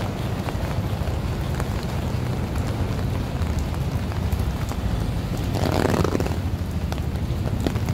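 Steady rain on a city street, with wind rumbling on the microphone and traffic noise underneath, and scattered drops ticking close by. A brief louder rush comes about six seconds in.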